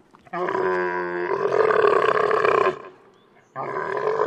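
A camel calling: one long call of about two and a half seconds that starts as a clear pitched tone and turns rough, followed after a short pause by the start of a second call near the end.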